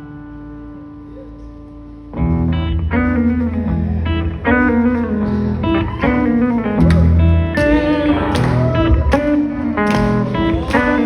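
Live blues-rock band: a held electric guitar note, then about two seconds in the full band comes in loud with a heavy guitar riff, bass and drums with cymbal crashes.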